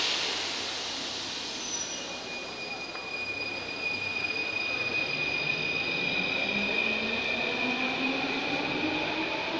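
Paris Métro Line 9 train pulling out of the station and accelerating: a short burst of noise at the very start, then a high steady whine and a motor whine that rises steadily in pitch as it gathers speed.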